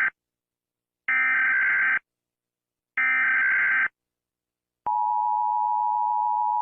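Emergency Alert System SAME header: digital data bursts about a second long with a second of silence between, the tail of one and then two more. About five seconds in comes the steady two-tone EAS attention signal, which marks the start of an alert broadcast.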